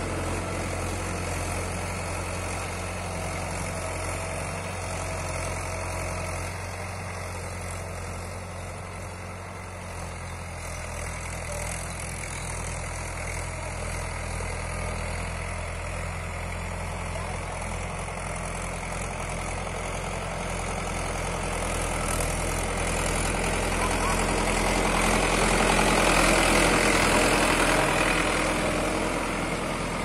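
Diesel tractor engine running steadily under load as it pulls a tine cultivator through ploughed soil, a low, even drone. The sound grows louder and harsher for several seconds near the end.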